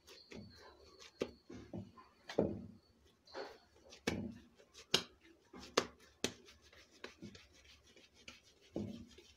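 Hands tearing pieces off a mass of risen yeast dough and pressing them into balls in a glazed clay bowl: a string of irregular soft slaps and handling noises, about a dozen strokes.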